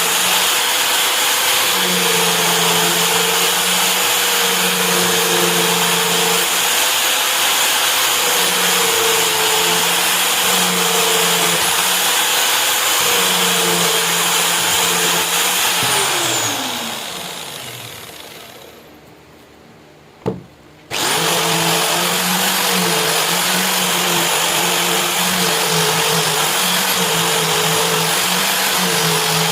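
Electric power tool running steadily, switched off and spinning down about 16 seconds in, then a single short knock and the tool back at full speed abruptly a second later.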